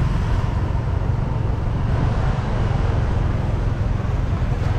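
Steady low rumble of a vehicle driving along a street: engine and road noise.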